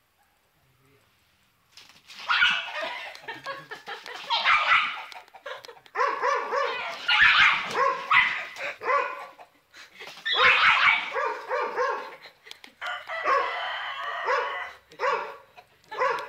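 Small dog barking rapidly and repeatedly at a fighting rooster squaring up to it. The barking starts about two seconds in and comes in four bouts with short pauses between them.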